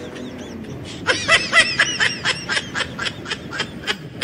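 High-pitched laughter: a rapid string of short 'he-he-he' bursts, about five or six a second, starting about a second in and stopping near the end.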